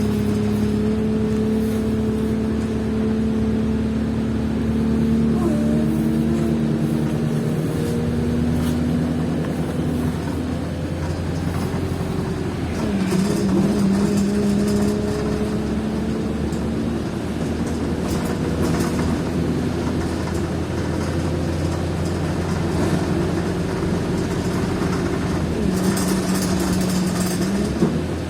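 Wright Eclipse bus running, with the strange noise the title points to: a steady droning hum with a higher tone above it. It shifts in pitch now and then and dips briefly twice.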